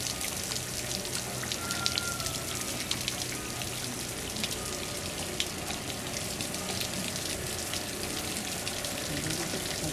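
Steady splashing of water, a constant hiss dotted with many small drip-like ticks.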